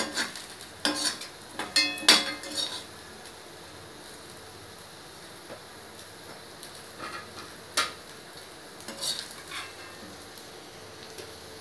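A metal spoon clinking and scraping against a kadai as food is stirred, with a faint sizzle of frying underneath. The clinks come in a quick cluster in the first few seconds, then a few scattered ones later.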